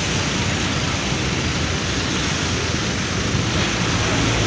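Intercity coach bus's diesel engine running steadily with a low rumble as the bus drives slowly past and away.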